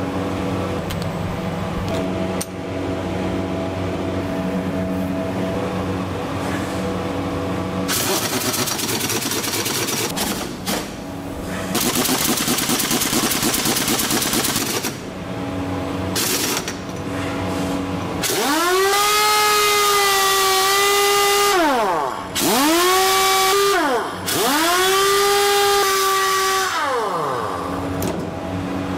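Pneumatic impact wrench on test: two bursts of rapid hammering with air hiss about eight and twelve seconds in. Then three free-running trigger pulls, each a whine that climbs to a steady pitch and falls away as the air motor spins down. A steady hum with a few held tones comes first.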